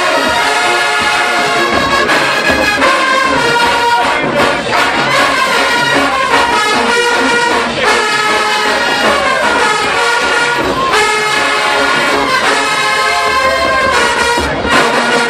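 Show-style HBCU marching band playing loudly, its full brass section of trumpets and trombones sounding sustained chords and moving lines.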